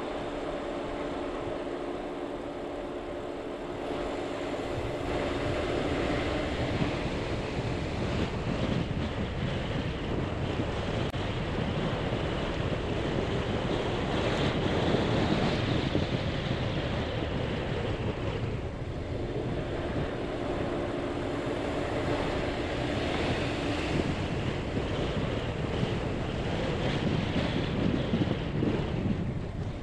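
Gusty storm wind rushing around a vehicle driving a dirt road, building to its loudest about halfway through. The engine's steady hum shows through near the start and again about two-thirds in.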